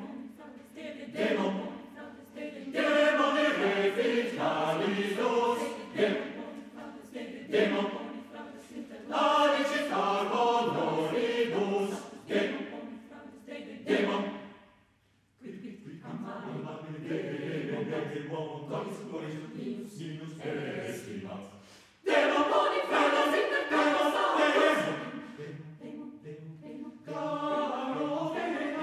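A mixed chamber choir singing a cappella. The voices break off for about a second near halfway, go on more softly, then come back in loudly all at once about three quarters of the way through.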